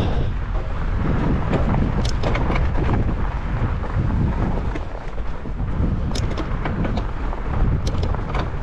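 Fat bike ridden fast on a snowy trail: a steady rumble of wind on the microphone and tyres rolling over snow, with a few sharp clicks and rattles.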